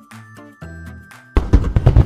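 Light background music with short plucked notes. About a second and a half in, a loud, noisy rush with rapid clatter cuts in over it and drowns it out.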